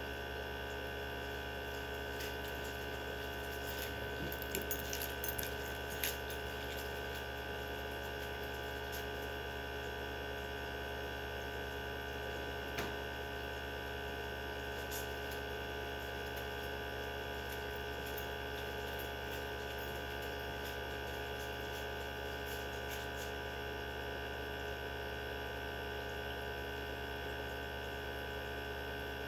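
Mini benchtop centrifuge spinning tubes of blood: a steady motor hum with a high, even whine. A few small ticks come about four to six seconds in, and one more near thirteen seconds.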